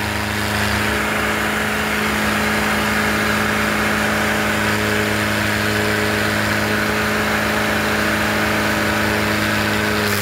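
Tractor diesel engine held at steady high revs under load in a tug-of-war pull, its pitch unchanging, with a steady hiss above it.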